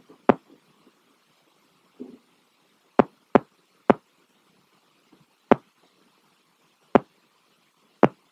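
A series of seven sharp knocks at irregular intervals: one near the start, three in quick succession about three seconds in, then single knocks spaced a second or more apart.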